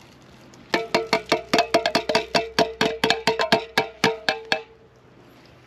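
A metal can of pie filling tapped rapidly while it is emptied, about six ringing taps a second for about four seconds, starting about a second in.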